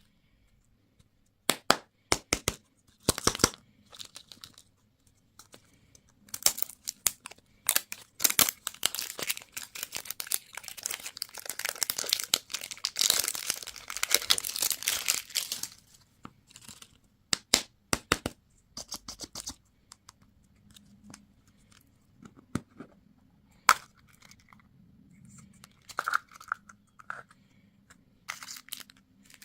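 Candy wrappers being torn open and crinkled by hand. Scattered sharp crackles give way to several seconds of dense crinkling in the middle, then fewer, softer rustles near the end.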